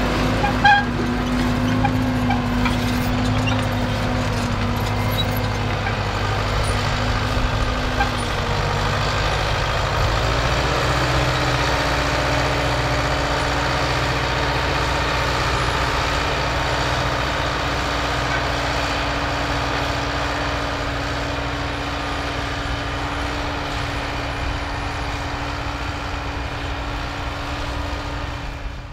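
Tractor diesel engine running steadily under load as it pulls a disc harrow through ploughed soil, with a few sharp clinks in the first second. About eight seconds in the engine note dips briefly, then settles slightly higher, and it slowly fades as the tractor moves away.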